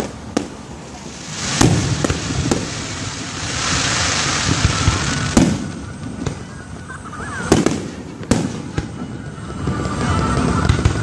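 Aerial fireworks shells bursting overhead: sharp booms at irregular gaps of a second or two, with a few seconds of dense hiss about three to five seconds in.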